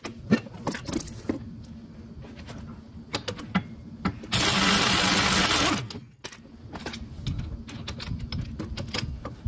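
Scattered metallic clinks and knocks of parts and tools being handled at a golf cart's front wheel hub, over a steady low hum. About four seconds in comes one loud burst, about a second and a half long, from a pneumatic impact wrench.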